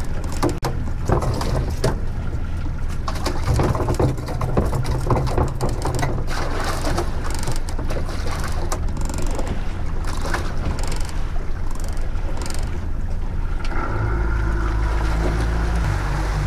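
Yamaha outboard engine running at trolling speed, with irregular knocks and clatter from a small bluefish being landed and handled in the cockpit. About 14 s in the engine note rises to a louder, steadier drone as the boat speeds up.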